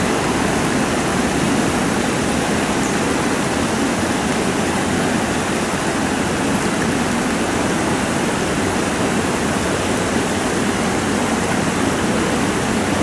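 Steady rush of water pouring out below a dam, an even roar of white water with no breaks.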